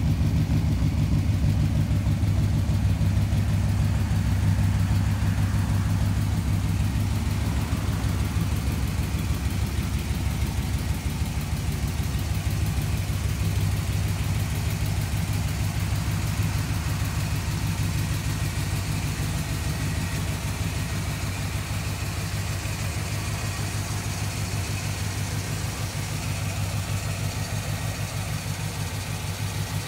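Custom 1951 Ford F-100 pickup's engine idling steadily through its dual exhaust, with a low, even beat, fading slightly toward the end.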